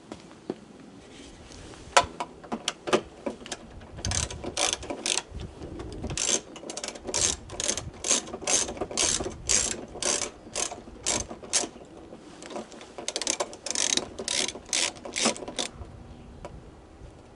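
Hand ratchet wrench clicking in runs of repeated strokes, about two a second with a couple of short pauses, as it works the fastener inside the truck door that holds the exterior door handle.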